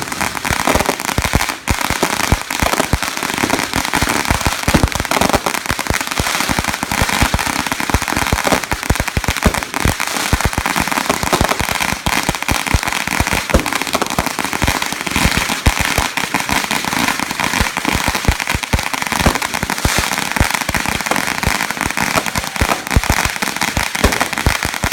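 Fireworks going off in a continuous rapid crackle, many sharp pops a second without a break.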